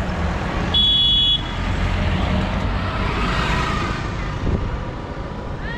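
Steady low rumble of a road vehicle, with a short high-pitched beep about a second in.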